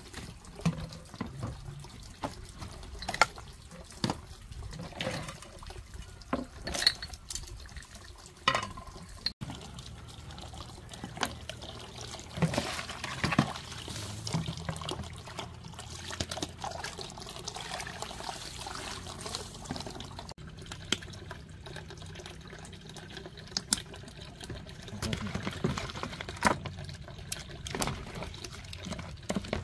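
Water scooped from an earthenware jar and poured and splashed in a plastic basin as dishes are washed by hand, with scattered sharp clinks of bowls, cups and chopsticks, more of them in the first half.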